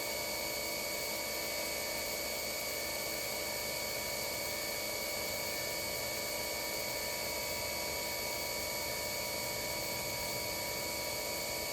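Spindle of a Chevalier QP1620-L vertical machining center (10,000 rpm spindle) running steadily at 6,000 rpm during a spindle speed run-up: a constant whine of several steady tones over a hiss.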